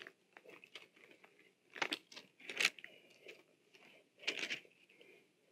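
Thin Bible pages rustling as they are turned, in a string of short rustles with three louder ones about two, two and a half and four and a half seconds in.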